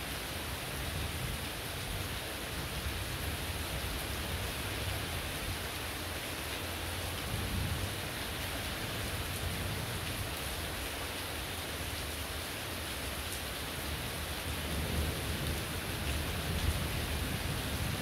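Heavy rain falling steadily, with a low rumble underneath that swells a little near the end.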